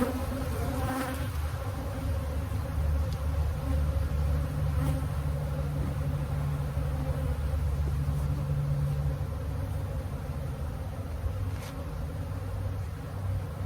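Steady hum of many honeybees buzzing around an opened hive, with a stronger stretch in the middle.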